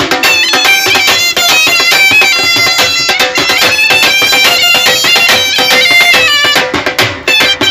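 A hand-held end-blown folk pipe played loudly: a quick run of high melody notes over a steady held drone note, with a short break near the end.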